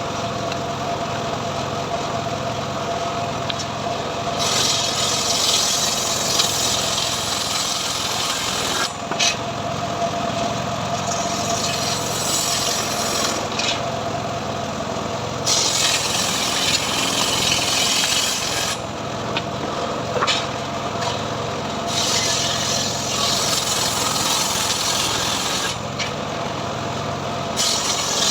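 Homemade engine-driven sawmill running steadily while its blade cuts into teak wood. The cutting comes in several stretches of a few seconds each, a bright rasping hiss over the engine, which keeps running between them.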